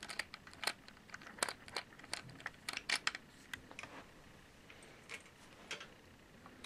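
Allen wrench turning out a small steel screw with a lock washer from the breech fixing part of a GSG-522 rifle's receiver: light, irregular metallic clicks and ticks, several a second at first, then thinning out after about four seconds.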